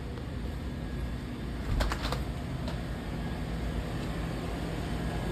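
Steady low background hum inside a convenience store, with a quick cluster of sharp clicks about two seconds in.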